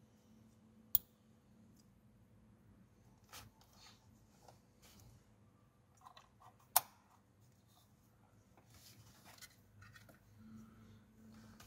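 Plastic wiring-harness connectors snapping home with two sharp clicks, one about a second in and one just past halfway, among faint rustling and ticking of cables being handled.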